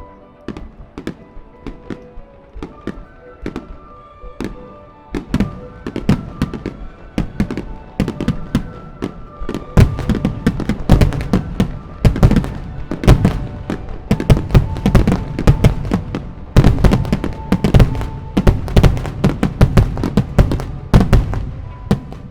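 Fireworks display: a rapid barrage of aerial shell bursts, growing denser and louder from about ten seconds in, with music playing beneath the bangs.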